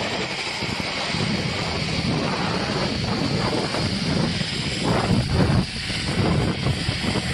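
Zipline trolley running along the steel cable during a ride, a steady whirring rush mixed with wind on the microphone, swelling about five seconds in.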